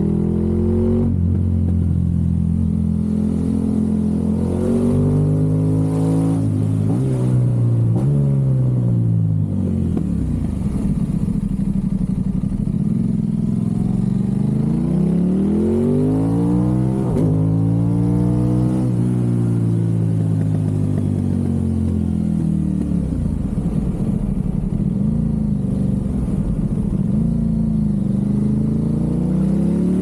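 Aprilia RS660 parallel-twin engine through a Mivv Delta Race exhaust, heard from on the bike at riding speed. The revs climb and drop again and again as the rider accelerates and shifts through a run of bends, holding steady for a few seconds in the last third.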